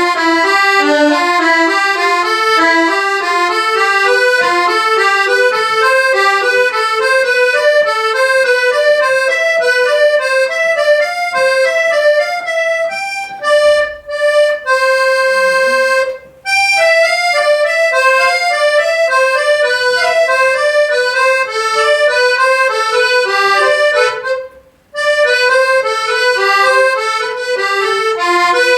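Accordion right-hand keyboard playing a legato finger exercise: a run of quick single notes climbing and falling in a repeating sequence. There is one held note about halfway through, and two brief breaks in the playing. A slight stop short of the tonic shows the exercise is not yet fully secure.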